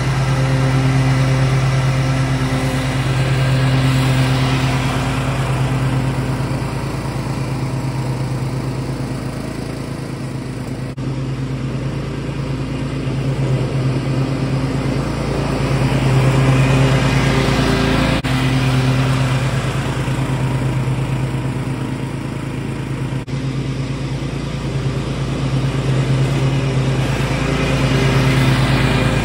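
Toro TimeCutter zero-turn mower with a freshly swapped-in Kohler 19 hp, 597 cc engine, running at a steady speed while it is driven. It grows quieter and louder again as the mower moves off across the lawn and comes back. The engine runs really good after the swap.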